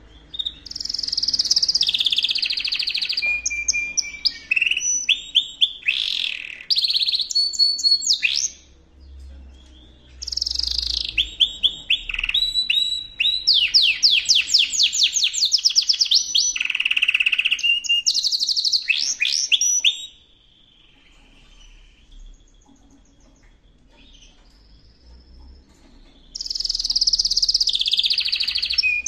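Yorkshire canary singing a long, varied song of fast rising trills and rolls in three long phrases, with a pause of several seconds before the last phrase starts near the end. This is its song at the start of conditioning for the breeding season.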